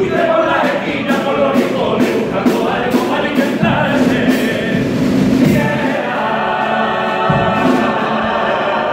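Men's carnival group singing a pasodoble together in harmony, with a snare drum keeping time. The voices settle into long held notes about six seconds in.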